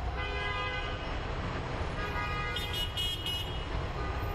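City street traffic with a long, steady vehicle horn tone over the rumble of passing cars.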